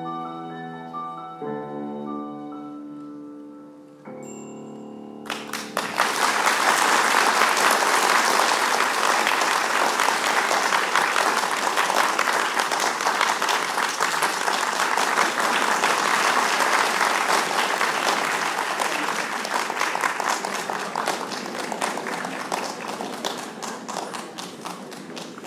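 The last bars played on violin, cello and piano, with held notes closing on a final chord. About five seconds in, audience applause breaks out and goes on, tapering off near the end.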